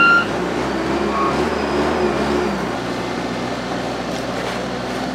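Steady outdoor traffic noise, with a short high beep at the very start and faint voices in the first couple of seconds.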